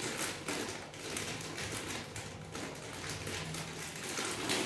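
A grocery packet rustling and crinkling as it is handled, in a string of irregular soft crackles.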